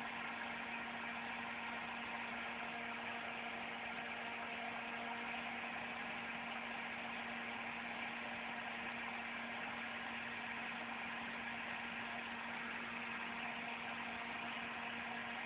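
Electric fan running with a steady, even hum and whir.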